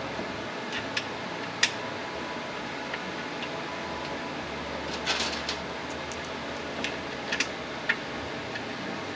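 Scattered light clicks and taps of hand tools and parts being handled on a transmission during teardown. The sharpest click comes about one and a half seconds in and a small cluster falls around the middle. All of it sits over a steady shop hum.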